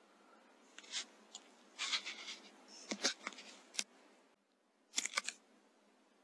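Sub-12 ft-lb .177 Weihrauch HW100S PCP air rifle shot at a rat: a sharp knock about three seconds in and another a moment later, among faint scattered clicks and rustles.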